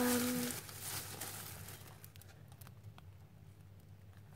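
A short hummed "mm" in a girl's voice, then packaging crinkling as purchases are handled for about a second and a half, falling away to faint taps and room tone.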